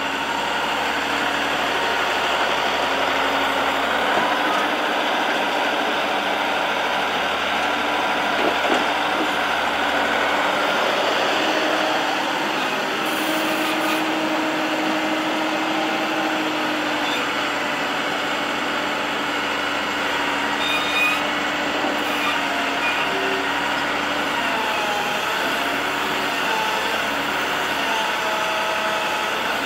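Diesel engine of a Tatra 815 UDS 114 wheeled excavator running steadily as it digs clay, its tones shifting up and down in pitch with the hydraulic work. A few light knocks come through, around a third of the way in and again about two-thirds in.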